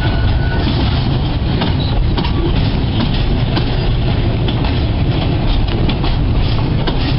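Container freight wagons rolling slowly past on the track: a steady low rumble of wheels on rail, with scattered clicks and knocks from the wheels and couplings.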